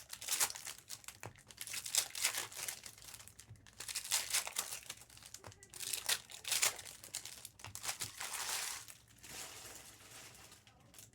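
Plastic wrappers of trading-card packs being torn open and crinkled in the hands, in irregular rustling flurries.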